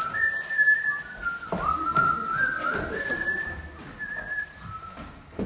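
A person whistling a slow tune: long held notes that step up and down between a few pitches.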